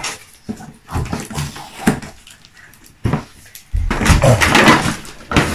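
A few light knocks, then loud scuffing and rustling from about two-thirds of the way in as a child scrambles across carpet close by.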